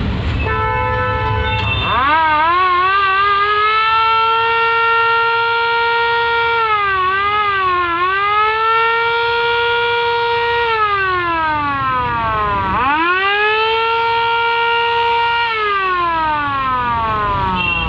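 Motor-driven VIP siren sounding. A second of short stepping tones comes first, then the siren winds up to a steady wail, dips twice, and winds down. It winds up again, holds, and falls away near the end.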